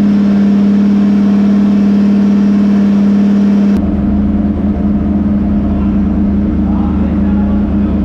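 Turbocharged drift car's engine running loaded on a chassis dyno, held at steady revs with one unchanging pitch. About four seconds in the sound turns rougher, with a deeper rumble added under the same pitch. The owner says straight afterwards that the clutch is slipping under load.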